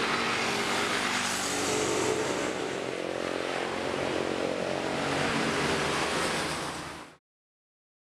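Road traffic: vehicle engines and tyre noise from passing cars and motorbikes, running steadily, then fading out about seven seconds in.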